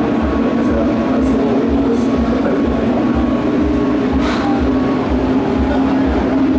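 Steady, loud mechanical drone holding one pitch throughout.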